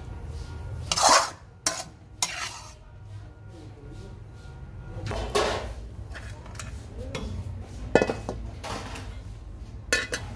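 A metal spatula scraping and knocking against a steel wok in a string of separate strokes while stir-frying. The loudest strokes come about a second in and as a sharp clank near eight seconds in, over a steady low hum.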